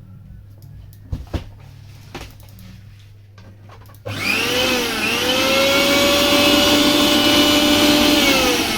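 Disnie mixer grinder's 1000-watt, 24,000 rpm motor starting suddenly about four seconds in, its whine rising in pitch, running at a steady high-speed whine, then falling in pitch as it runs down near the end. A few faint clicks come before the start.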